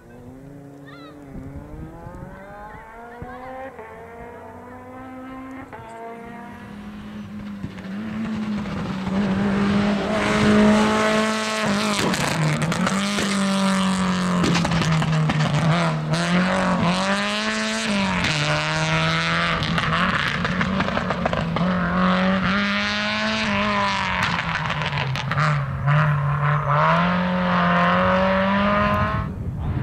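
Rally car engine approaching from a distance and growing louder over the first eight seconds. It then stays close and loud, revving up and dropping back again and again as the driver shifts gears and lifts off through the corners.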